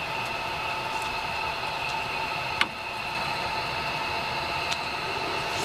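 Steady hiss of a propane camp stove burner under a pot, with one light click about two and a half seconds in and a fainter one near the end.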